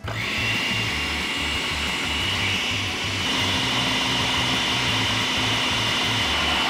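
Anex AG-3144 Deluxe Chopper food processor switched on and running steadily with a high whine, its blade mixing flour, yeast, sugar and salt with poured-in water into pizza dough.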